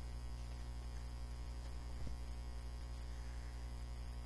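Steady low electrical mains hum. A single brief soft knock about two seconds in, as the board-book page is turned.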